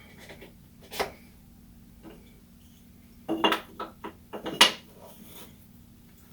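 Wooden knocks and clatter of bench dogs and a board being set on a converted tabletop workbench: one sharp knock about a second in, then a quick cluster of knocks a couple of seconds later, the loudest near the end of it.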